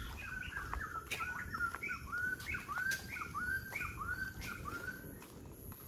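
A bird calling from the forest canopy: a long run of short, arched, clear notes repeated about two to three times a second, with fainter higher notes between them, stopping shortly before the end.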